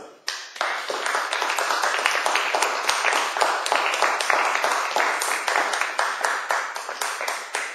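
A small group of people applauding, a dense run of hand claps starting about a quarter second in.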